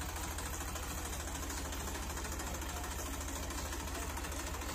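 Massey Ferguson 241 DI tractor's three-cylinder diesel engine running steadily at low revs, with a fast, even beat.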